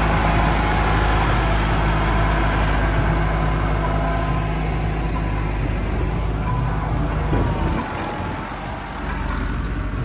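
Massey Ferguson 385 tractor's diesel engine running steadily under load as it drags a scraper blade through loose earth. Its low note weakens about eight seconds in.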